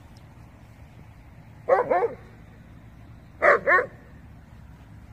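A dog barking amid rough play with other dogs: two pairs of quick barks, the second pair about a second and a half after the first.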